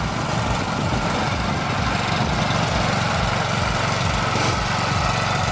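Small engine of a tracked motorized ice tow (a 'motor-dog') running steadily, with an even pulsing beat.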